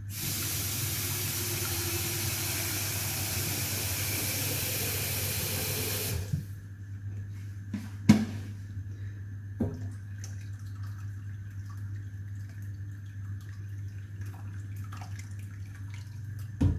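Water running from a tap into a cooking pot for about six seconds, then shut off. After that come a sharp knock of kitchenware and a little lighter clatter over a steady low hum.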